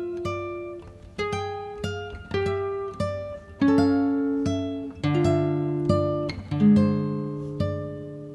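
Background music: an acoustic guitar picking slow single notes and the odd chord, each note ringing and fading before the next.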